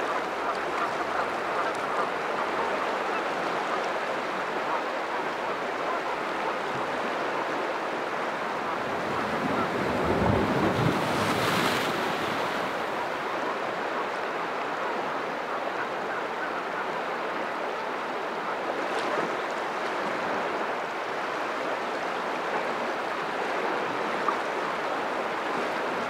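Sea surf washing over a rocky shoreline: a steady wash of water, with one louder wave surge about ten seconds in.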